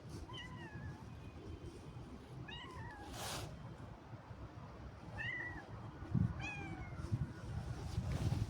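A cat meowing: four short, high meows a couple of seconds apart, each falling slightly in pitch. A brief burst of noise comes after the second meow, and low thumps come near the end.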